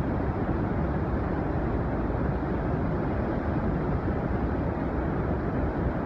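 The Yellowstone River pouring over the brink of the Upper Falls: a steady, heavy rush of falling water, deep-toned with little hiss.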